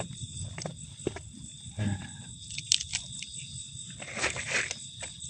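Steady high-pitched insect drone, as of crickets or cicadas, with scattered clicks and a brief rustle about four seconds in.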